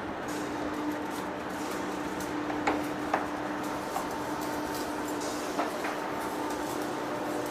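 Heavy-duty face lathe running with a steady hum, with a few sharp metallic clinks around the middle.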